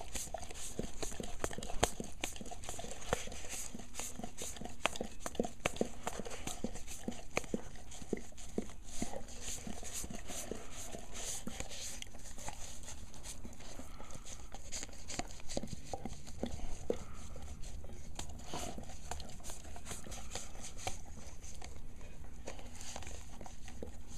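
A dog licking a Frosty frozen dessert out of a paper cup: many irregular licking clicks and smacks as tongue and muzzle work against the cup.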